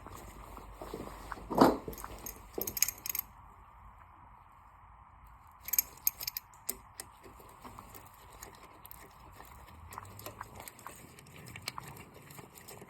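Metal tools and engine parts clinking and knocking during hand work on an engine: one loud knock about a second and a half in, then two short clusters of clinks and scattered light ticks.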